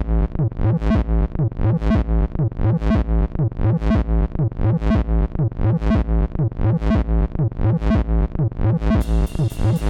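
Electronic instrumental music: a repeating synthesizer and bass pattern with a steady beat, with a bright high percussion layer coming in near the end.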